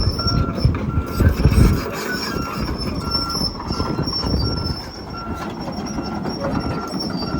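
Volvo EC220E tracked excavator travelling: the diesel engine runs under a dense low rumble and track clatter, with heavier knocks in the first two seconds. A high squeal runs throughout, and the travel alarm beeps evenly, about one and a half beeps a second.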